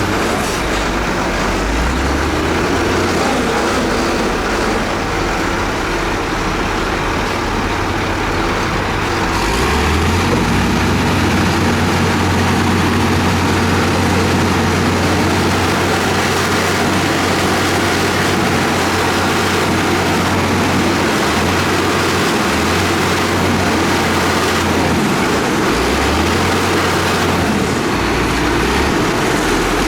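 Diesel engines of heavy earthmoving machinery running hard, their engine speed stepping up and down several times. The sound gets somewhat louder about a third of the way in.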